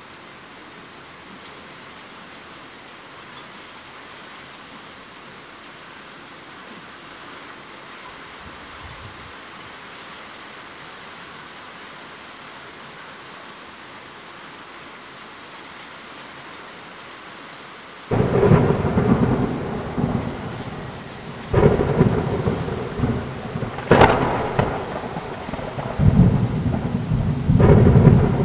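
Steady rain falling, then about two-thirds of the way in thunder breaks in suddenly and rumbles on, swelling up again three or four times over the rain.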